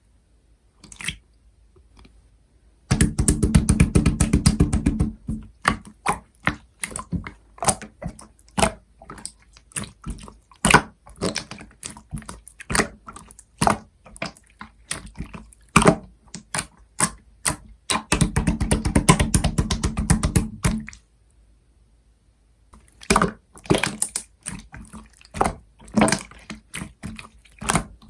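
Slime being squeezed and poked by hand, giving wet, sticky popping and crackling clicks. There are two stretches of rapid, continuous crackling, one about three seconds in and one about eighteen seconds in, with slower separate pops between them.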